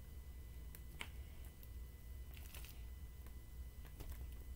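Faint, scattered sticky clicks and squelches of fingers picking through a tray of slime, over a low steady hum.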